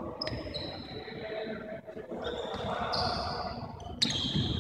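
Indoor handball play in a large hall: shoes squeaking on the court floor and the ball bouncing, with a sudden loud knock about four seconds in.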